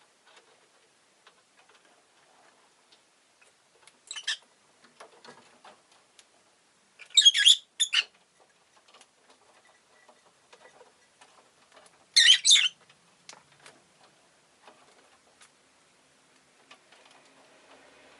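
Rosy-faced lovebird giving short, sharp, high-pitched chirps: one about four seconds in, a quick pair a few seconds later, and one more near the middle, with faint scattered ticks and clicks in between.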